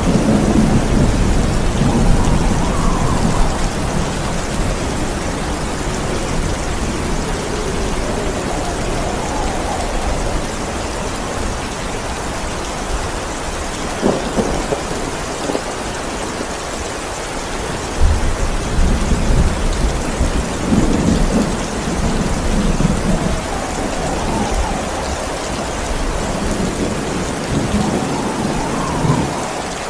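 Heavy rain falling steadily, with low thunder rumbling at the start, again about two-thirds of the way through, and near the end. There is a single sharp crack of thunder about halfway.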